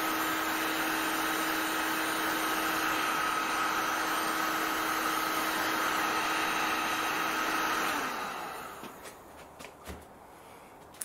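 Heat gun blowing steadily with a constant whine, warming glue to loosen it. It is switched off about eight seconds in and its fan winds down, and a light knock follows near the end.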